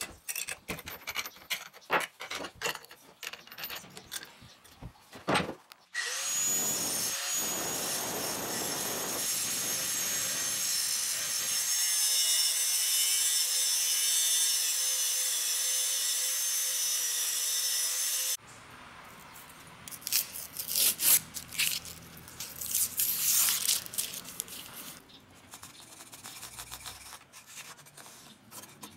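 Angle grinder with a cut-off disc running steadily for about twelve seconds as it cuts 5160 steel plate, with a high whine that wavers slightly. Before it come intermittent clicks and scrapes of handling the grinder, and after it softer scrapes and knocks of handling the cut steel.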